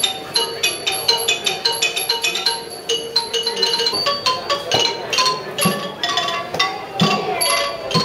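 Thai classical ensemble music, led by a ranat xylophone playing fast runs of ringing struck notes.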